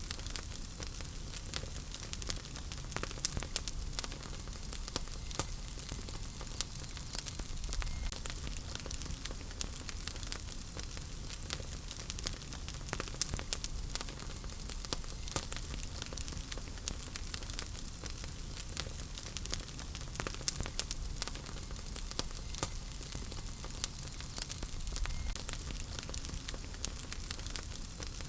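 Wood fire burning in a fireplace: a steady soft hiss with irregular sharp crackles and pops from the burning logs.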